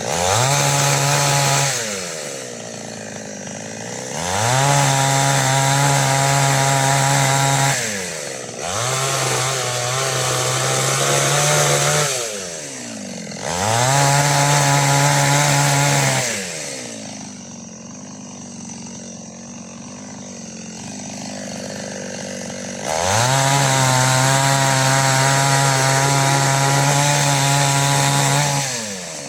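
Two-stroke engine of a Preco chainsaw with an 18-inch bar, run up to full throttle in five bursts of about two to four seconds each. Each burst rises quickly in pitch, holds steady, then drops back to idle, and there is a longer stretch of idling in the middle.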